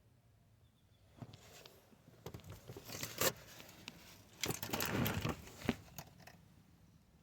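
Squirrel eating, crunching and gnawing on its food in irregular bouts of crackling, loudest in two spells near the middle and toward the end.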